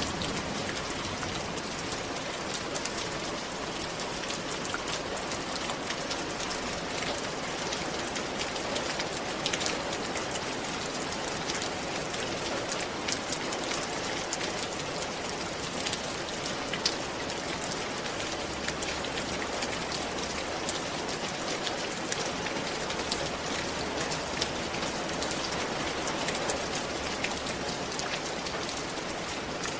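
Steady rain falling on a roof, a constant hiss with many fine drop taps.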